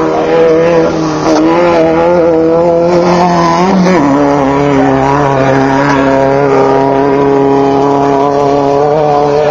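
Off-road race buggy's engine running steadily at a fast idle. About four seconds in, the pitch rises briefly and then drops sharply, as if a blip of throttle was let off.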